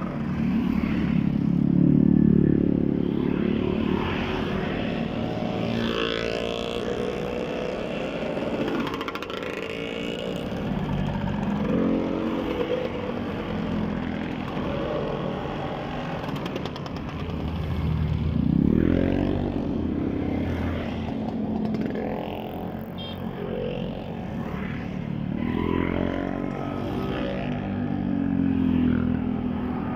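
A long line of motor scooters riding past one after another. Each engine note rises and falls in pitch as it goes by, with a few cars among them. The loudest passes come about two seconds in and again past the middle.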